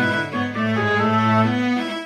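Computer-rendered orchestral music from notation-software playback: bowed strings in several parts, with a held low cello note that stops near the end while the upper lines keep moving.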